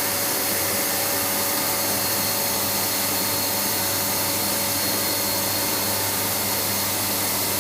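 CNC milling machine cutting a graphite EDM electrode: a steady, even hiss with several constant hums and a high whine underneath.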